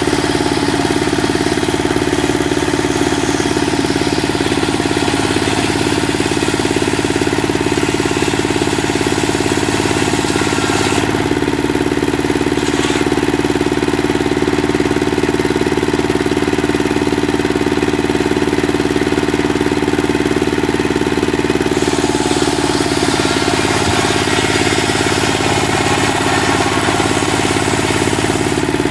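A single-cylinder Dongfeng diesel engine runs steadily, belt-driving a circular saw that rips a long timber lengthwise. The noise of the blade cutting the wood lies over the engine's beat and changes in the middle.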